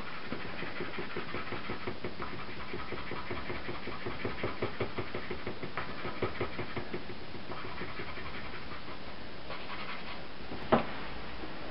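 White soft pastel stick rubbing on drawing paper in quick back-and-forth shading strokes, about four strokes a second, easing off after about seven seconds. A single sharp knock near the end.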